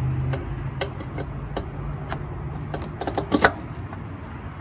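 Light clicks and taps of hands handling metal and plastic parts in a car's engine bay, with a louder clatter about three and a half seconds in, over the steady low hum of another car's engine running.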